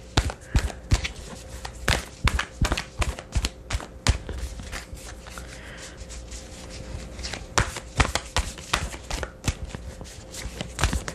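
A deck of oracle cards being shuffled by hand: a quick, irregular run of card slaps and flicks that eases off briefly around the middle and picks up again.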